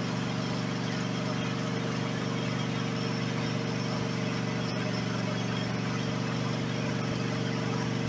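Cub Cadet LX42 riding mower's Kohler KT725 V-twin engine idling steadily, left running to burn off the fuel left after the tank was drained.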